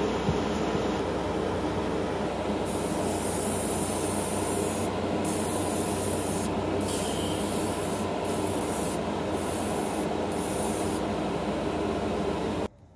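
Airbrush hissing in several short bursts as thinned rust paint is sprayed onto model tank tracks, over a steady motor hum. All of it cuts off abruptly near the end.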